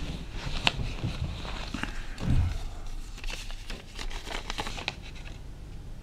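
Handling noise of paper and bedclothes rustling, with scattered light clicks and a soft low thump about two seconds in, over a steady low room hum; the rustling stops a little before the end.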